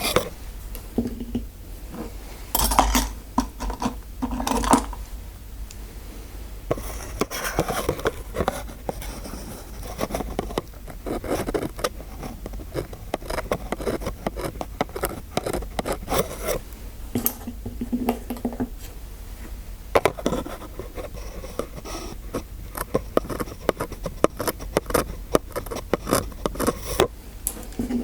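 Scraping and quick clicking of small hard instruments, like dental tools worked in a dentist-roleplay ASMR. The clicks come densely and unevenly, with a few louder bursts.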